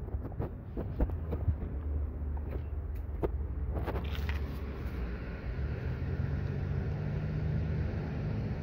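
Steady low rumble of passing road traffic. In the first half there are a few light knocks from the phone being handled against the window glass, and a steadier engine hum near the end.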